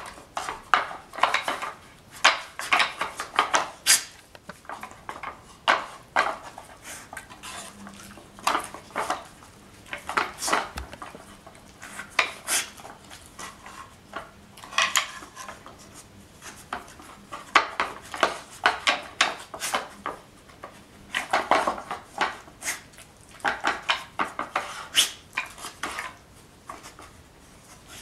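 Stacked discs of a wooden Nina Ottosson Dog Tornado puzzle toy clattering and knocking as a dog noses and paws the layers round, in irregular bursts of clicks and rattles with short pauses between.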